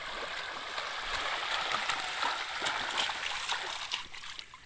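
Water splashing and streaming as a bamboo-framed cloth scoop net is pushed through shallow flooded-field water and lifted, the water pouring off its edge. The rush of water swells about a second in and dies away near the end.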